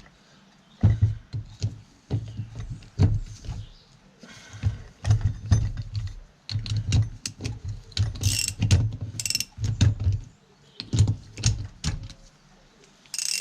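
Irregular metal clicks and knocks, with dull thuds, as hand tools and parts of a tractor hydraulic pump are handled and fitted together.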